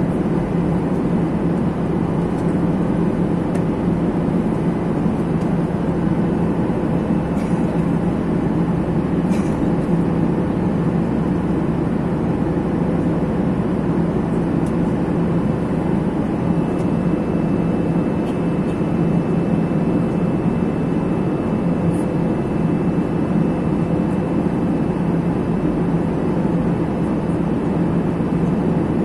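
Steady cabin noise of a Boeing 737 airliner in cruise: an even rush of engine and airflow noise with a constant low hum. A faint high whine comes in about halfway through.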